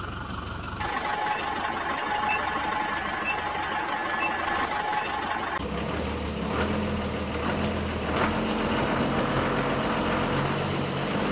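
Truck engine sound effect: a steady engine drone with faint beeps about once a second, switching about halfway through to a lower idling truck engine.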